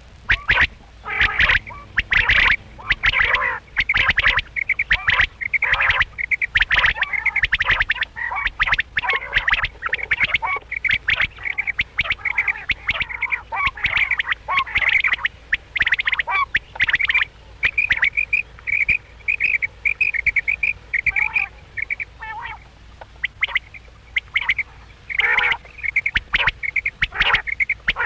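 Quails calling: a rapid, dense string of short, high calls, turning for a while in the middle into an evenly spaced run of short notes.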